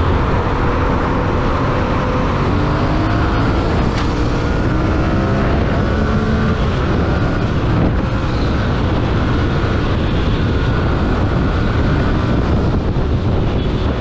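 Yamaha MT sport motorcycle's engine running hard at high road speed, with heavy wind rush over the rider's microphone; the engine note climbs several times as it accelerates.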